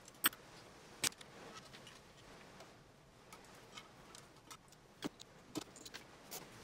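Scattered small clicks and taps of metal parts and tools handled while fitting a CNC router's Z-axis assembly by hand: two sharper clicks in the first second, then a few fainter ones near the end.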